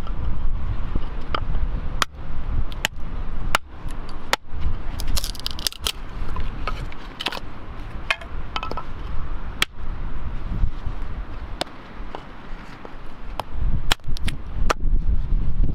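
Wood fire crackling, with irregular sharp pops and snaps over a low rumble.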